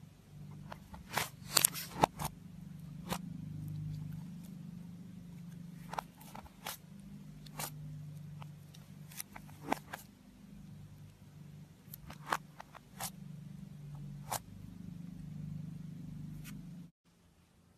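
Soft clay slime being stretched, folded and pressed by hand, giving scattered sharp clicks and pops, a cluster of them about a second in, over a steady low hum. The sound cuts off sharply near the end.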